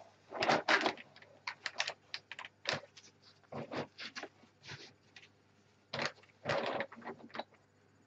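A gloved hand handling an upside-down Wyse PCE plastic keyboard and its coiled cord: irregular knocks, clicks and rustles, loudest about half a second in and again around six to seven seconds.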